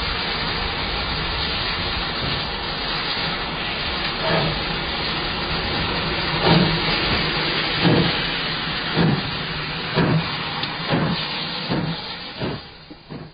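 Steam locomotive hissing steadily, then pulling away: its exhaust chuffs start about four seconds in and come gradually quicker, fading out near the end.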